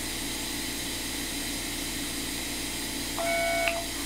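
Steady whirring hum of an iTero digital intraoral scanner unit in use, with a short electronic beep of several steady tones about three seconds in.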